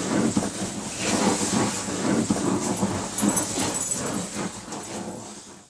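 Flame hissing and crackling steadily, fading out near the end.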